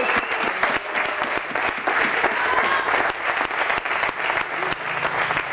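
Audience applauding: many hands clapping steadily.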